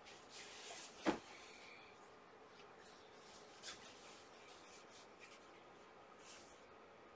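Soft fabric rustling as cloth cat beds and a striped fabric tube are handled, with one sharp knock about a second in and a smaller tap a little past halfway.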